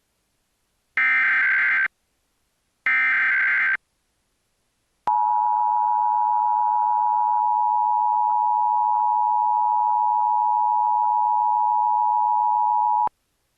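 Emergency Alert System tones: two roughly one-second bursts of SAME header data, warbling screech tones about a second apart. After a short gap comes the two-tone attention signal, held steady for about eight seconds before cutting off abruptly. This opens a monthly test alert.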